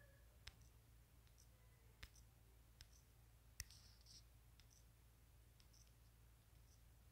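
Near silence over a low steady hum, with about a dozen faint, sharp clicks at irregular intervals; the loudest come about two and three and a half seconds in.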